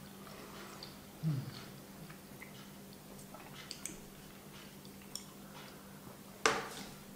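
Quiet eating mouth sounds: faint chewing clicks and a brief low falling hum from the throat about a second in. Near the end comes one loud slurp of espresso sipped from a small cup.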